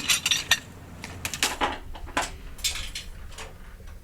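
Metal clinking and clattering: an irregular run of sharp clicks and rattles, like hand tools and small metal hardware being handled, densest in the first half second.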